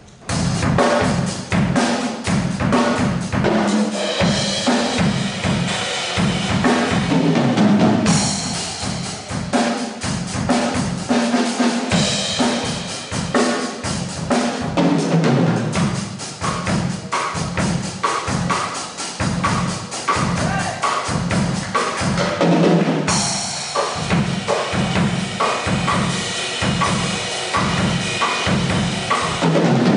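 Acoustic drum kit played solo: fast strikes on snare, toms and bass drum, with cymbal crashes every few seconds. It begins suddenly with a hit.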